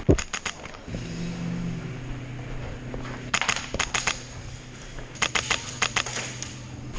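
Airsoft guns firing in three quick strings of sharp cracks: one at the start, one about three and a half seconds in, and one from about five to six seconds in. A steady low hum runs underneath from about a second in.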